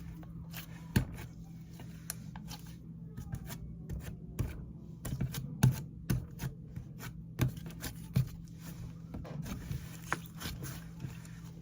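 Slime being squished and mixed by hand, giving irregular sticky clicks and pops, a few louder ones around the middle.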